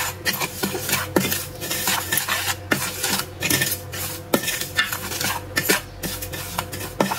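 Wooden spoon stirring dry ground spices in a ceramic bowl: irregular scraping and light knocking of the spoon against the bowl.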